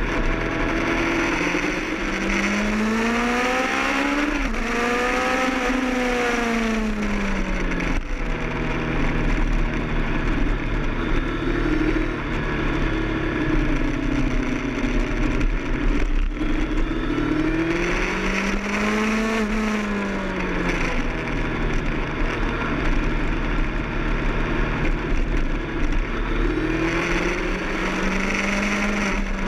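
Kawasaki ZX-10R inline-four engine at speed on a race track, its note climbing and falling in smooth swells as the throttle is worked, peaking about five seconds in, again just before the twenty-second mark, and rising near the end. A steady rush of wind noise runs under it.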